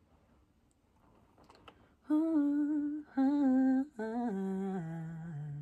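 A woman's voice humming a wordless melody into a studio microphone: after about two seconds of quiet come three held notes, the third stepping down in pitch.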